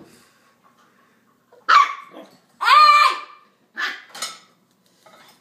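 An eight-week-old puppy barking: four high-pitched barks starting almost two seconds in, the second one the longest.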